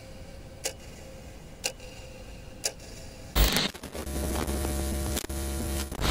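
Clock-like ticking, one tick a second, three times. Then a sudden loud burst of electronic static about three and a half seconds in settles into a steady buzzing hum with crackle, the sound of a glitching, breaking-up signal.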